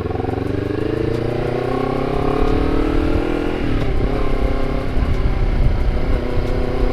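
Honda CBR250RR motorcycle with a KEA Speed aftermarket exhaust accelerating. The engine note climbs steadily for about three and a half seconds, breaks and drops in pitch at an upshift, then climbs again.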